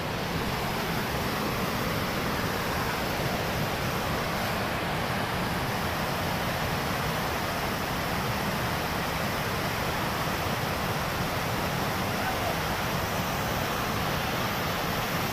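Flooded mountain river in spate, its whitewater rushing loudly and steadily over rocks.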